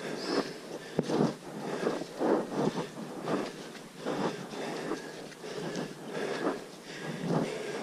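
Footsteps in rubber boots on a wet, muddy trail, about one or two steps a second.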